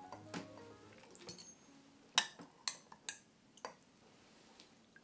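A metal spoon clinking lightly against a glass bowl of sauce a few times as sauce is scooped out, over soft background music that fades out in the first second or two.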